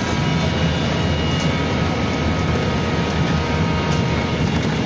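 Inside a moving BKM-32100D trolleybus: the steady whine of its electric drive over the low rumble of the tyres on the road.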